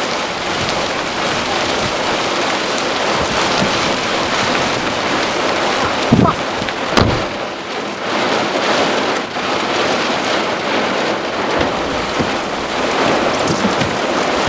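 Heavy rain and strong wind making a steady rushing hiss, with two brief low thumps about six and seven seconds in.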